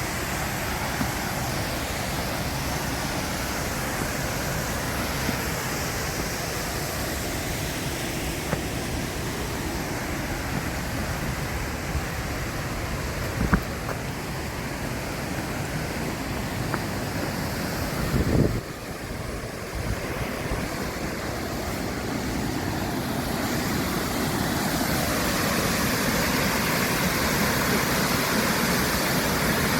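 Steady rushing noise of surf and wind on a coastal cliff. A sharp knock comes about halfway through and a thump a few seconds later, and the rushing grows a little louder near the end.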